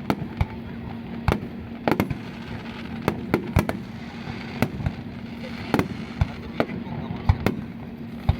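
Aerial fireworks bursting in an irregular run of sharp bangs, about one to three a second, each followed by a short echo.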